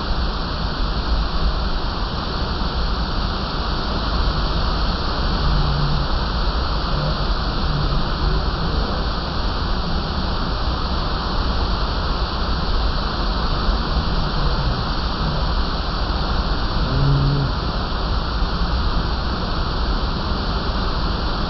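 Waterfall rushing: a loud, steady roar of falling water. A few short low-pitched sounds rise briefly above it now and then.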